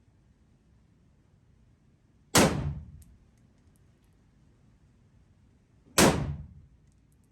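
Two gunshots about three and a half seconds apart, each sharp and loud with a short fading echo after it.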